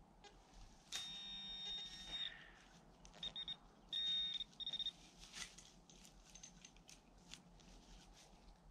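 Handheld metal-detecting pinpointer probed into a dig hole, sounding a high electronic tone that signals metal in the soil: one long tone about a second in, then a few short beeps and another brief tone near the middle. Soft scratching of soil and grass follows.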